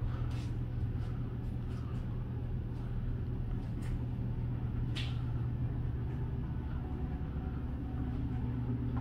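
Footsteps in high-heeled shoes on a hard floor: a few scattered light taps, the clearest about five seconds in, over a steady low hum.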